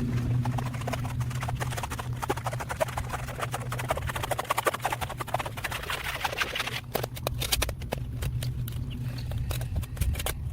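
A small engine running steadily, with a dense run of rapid clicks and ticks over it that thin out about seven seconds in.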